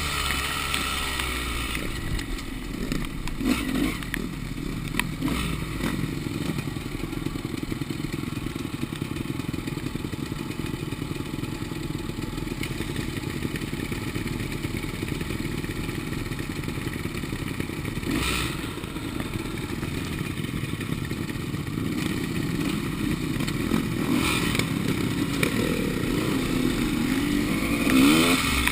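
Enduro motorcycle engine running at fairly steady revs, with a few clattering knocks from the bike.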